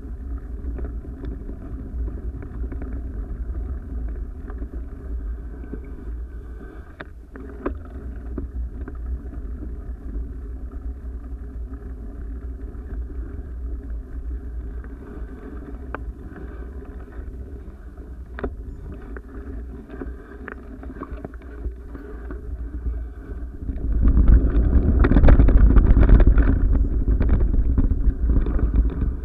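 Steady rumbling motion noise from a moving action camera, with wind on the microphone and a few sharp clicks and rattles from travelling over a dirt path. The rushing noise grows much louder near the end.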